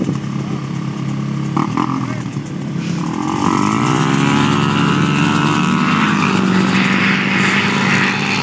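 Pickup trucks (a Ford F-150 and a Chevy Silverado) and an ATV running at the start line, then revving hard and accelerating away from a standing start about three seconds in, the engine note climbing.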